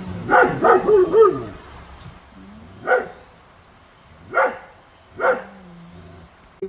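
A dog barking: a quick run of about four barks, then three single barks spaced about a second and a half apart.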